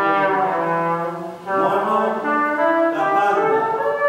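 Solo trumpet playing a run of changing notes, with a short break about one and a half seconds in before the next phrase.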